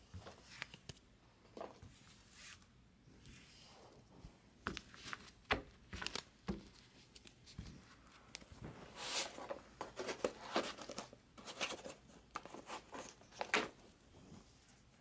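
Cards and their packaging handled by hand on a table: scattered light clicks and taps with short crinkling rustles. The handling grows busier for a few seconds past the middle.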